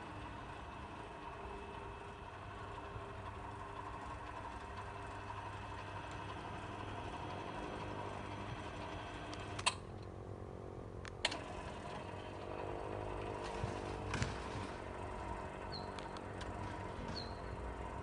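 Automatic garage door operator running steadily as the door is driven open by the remote, with two sharp clicks about ten and eleven seconds in.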